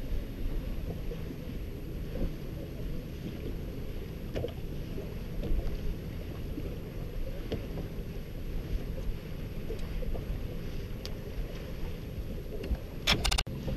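Water lapping against a bass boat's hull, with a steady low rumble and a few light ticks. Two sharp knocks come near the end.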